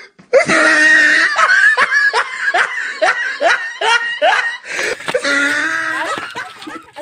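People laughing: a run of quick, evenly repeated bursts of laughter, about three a second, with a longer drawn-out voice near the end.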